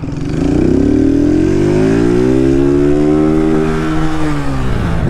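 Motorcycle engine heard from the rider's seat, accelerating away: its pitch rises over the first second or so, holds, then drops back as the throttle eases near the end.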